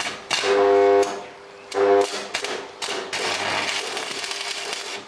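Electric arc welding on scrap iron: two short bursts of a harsh mains-frequency buzz, then a longer stretch of dense crackling hiss as the arc burns.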